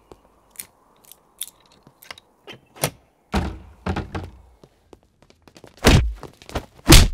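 Footsteps, then a door pushed open about halfway in, then two heavy thumps near the end, the loudest sounds: film fight sound effects as men leap out to attack.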